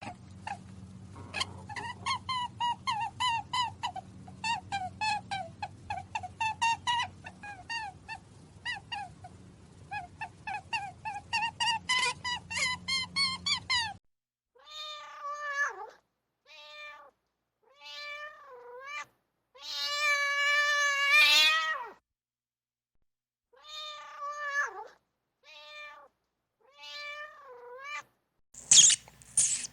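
Domestic cat meowing. For about the first half, rapid high-pitched mews follow one another over a low hum. After an abrupt change, single meows come with pauses between them, and one is held longer.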